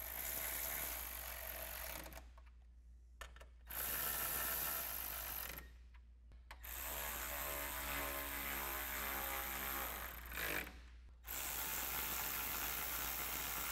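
Cordless electric ratchet with a 10 mm socket running in four separate bursts of a few seconds each, driving the grille bolts down tight one after another.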